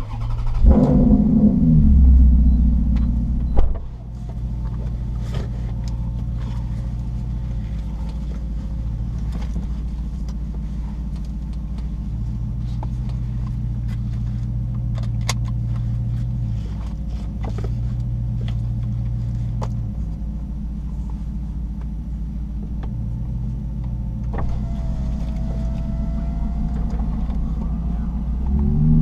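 Maserati GranTurismo MC Stradale's V8 engine heard from inside the cabin: the revs flare for about three seconds at the start, then settle into a steady idle, and rise again near the end.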